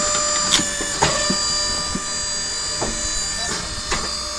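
Homemade 17-ton wood splitter running with a steady whine, while wood gives sharp cracks and snaps about six times as it is split.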